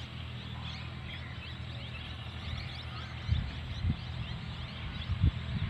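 Small birds chirping repeatedly over a steady low drone, with a few low thumps in the second half.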